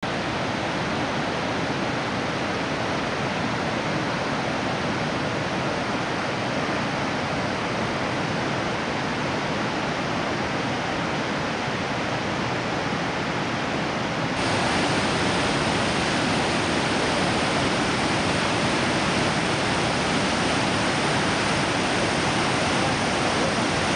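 Mesa Falls, a large waterfall, heard as a steady rush of falling water; about halfway through it steps up louder and brighter.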